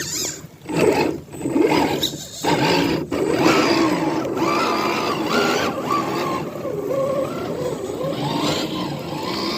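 Redcat Gen8 RC crawler's electric motor and gear drivetrain whining as it drives. It comes in short bursts at first, then runs steadily from about two and a half seconds in, the pitch rising and falling with the throttle.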